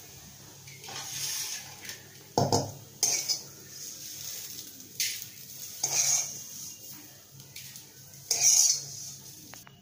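Plastic spatula scraping and knocking against a black wok in about six short strokes, scooping out dry, crisp-fried fenugreek greens.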